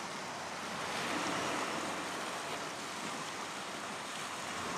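Steady wash of waves and wind off open sea water, an even hiss.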